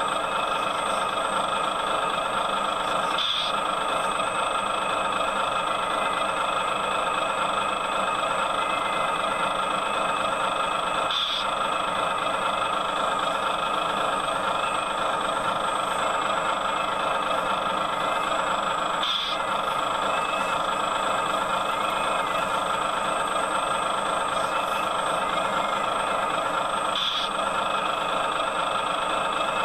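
Excavator engine running steadily under work. A brief higher-pitched sound comes four times, about every eight seconds, in step with the machine's repeating work cycle.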